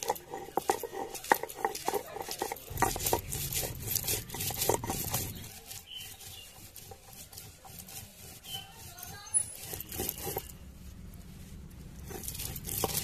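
Stone roller working green chillies and coriander leaves on a flat grinding stone (shil-nora): rapid clacks and wet crunches of stone on stone, dense in the first half and sparser after.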